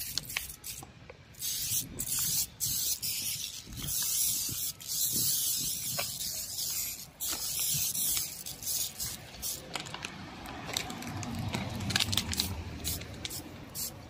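Hand spray bottle spraying a homemade grease-cutting solution onto an air conditioner's greasy plastic casing. Long hissing sprays run through the first half, then shorter spurts with short clicks of the sprayer.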